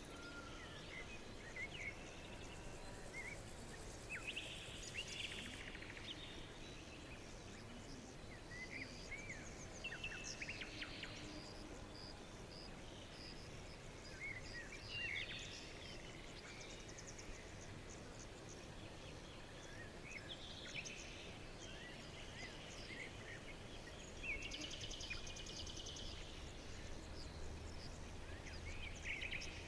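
Several songbirds chirping and trilling at intervals over a faint steady background hiss.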